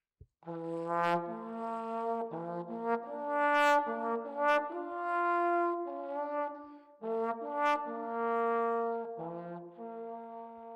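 Trombone music: a slow phrase of held notes, with two or more parts sounding together in places.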